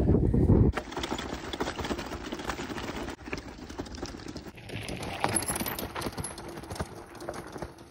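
Loaded hardtail mountain bike rattling over rough ground: a steady run of small clicks and knocks from the bike and its luggage. A gust of wind hits the microphone in the first second.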